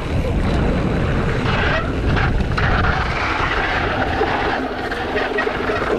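Wind rushing over the microphone and knobby tyres rolling over a dry dirt and gravel trail as a mountain bike descends at speed, with knocks and rattles from the bike over bumps.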